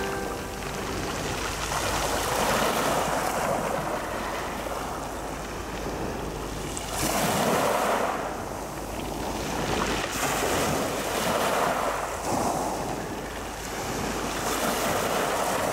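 Small sea waves breaking and washing over a pebble beach, a rush of surf that swells and ebbs every few seconds.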